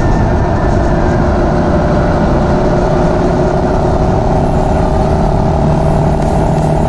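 GPX Legend Gentleman 200 motorcycle's single-cylinder engine running steadily while riding, with wind and road noise rushing over the microphone.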